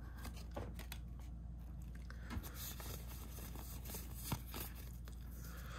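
Faint rustling of Pokémon trading cards being handled and shuffled through, with a few soft clicks.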